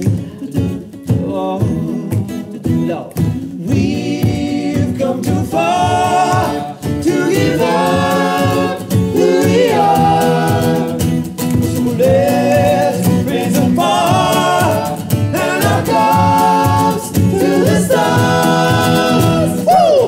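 Male a cappella group singing wordless close harmonies over a deep vocal bass line with a steady rhythmic pulse. The higher harmony voices come in about five seconds in.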